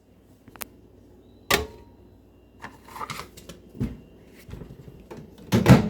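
Clicks and knocks of a microwave oven being worked by hand: the door and a plate handled, with scattered sharp knocks and the loudest clunk near the end.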